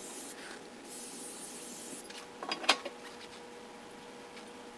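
Aerosol brake cleaner hissing onto a new brake rotor in two bursts, the second about a second long, then a few metal clinks and one sharp clank in the middle, over a faint steady hum.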